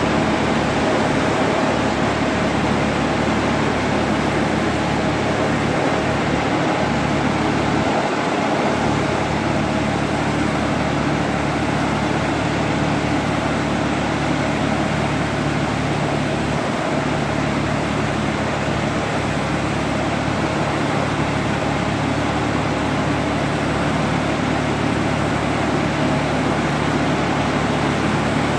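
Mitsubishi tractor engine running steadily while driving a Mitra air-blast orchard sprayer, whose blower fan gives a loud, even rush of air as it blows spray mist. A steady low drone under the rushing air, unchanging throughout.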